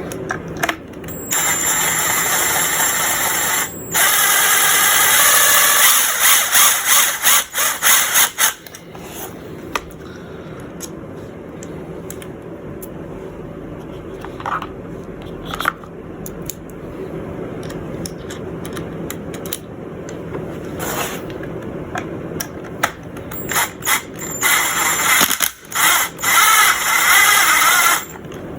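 Power drill running in bursts, driving a screw extractor into a stripped screw head in a Kel-Tec Sub 2000. The extractor is not catching: it grinds and spins against the stripped head. The longest runs come in the first eight seconds and again near the end, with a short one in the middle.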